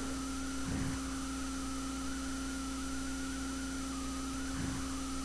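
Steady electrical hum with a higher, slightly wavering whine over an even hiss. This is the room tone of the recording during a pause, with two faint soft noises, one about a second in and one near the end.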